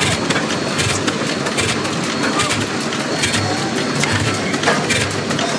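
Blackstone oil stationary engine running: a steady mechanical clatter with sharp clacks coming a few times a second and low thuds under them.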